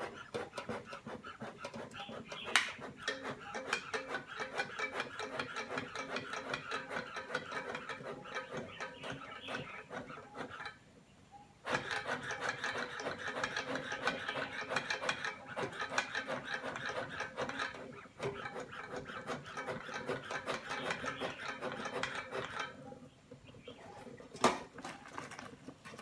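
Bellows of a bee-hive smoker pumped rapidly and rhythmically, each squeeze a rasping puff of air, fanning the smoker's fuel of dried orange peel and wood scraps into flame. The pumping runs in two long stretches with a short pause about eleven seconds in and eases off about twenty-three seconds in; a sharp click sounds near the start and another near the end.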